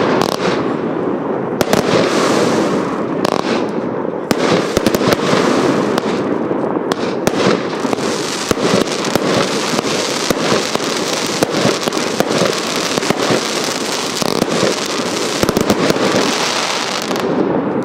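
Hallmark Fireworks Royal Salute firework going off: a dense, continuous barrage of rapid shots and crackling bursts that keeps up steadily and stops right at the end.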